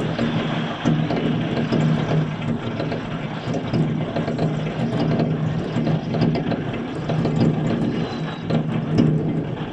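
Firecrackers and fireworks going off all over a city, a continuous dense crackle of many overlapping pops and bangs, over a steady low hum.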